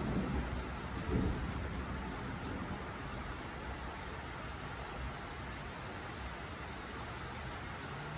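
Steady rain falling during a thunderstorm. A low rumble of thunder dies away over the first second or two, with a brief swell about a second in.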